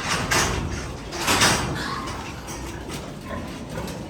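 Pigs and piglets squealing and grunting in a farrowing pen, with two louder squeals, one just after the start and a longer one about a second and a half in.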